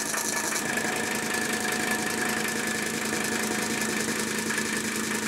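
Mercedes-Benz W123 diesel engine idling steadily just after starting, with no coughing or sputtering. Air has just been bled from its fuel system with an electric boost pump.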